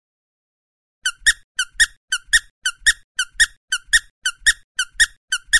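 Squeaky step sound effect: pairs of short high squeaks, a small one then a louder one with a soft thud, repeating about twice a second in a steady walking rhythm, starting about a second in.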